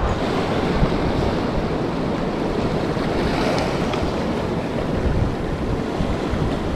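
Shallow surf washing and foaming over a rocky reef flat, a steady rush of water, with wind buffeting the microphone.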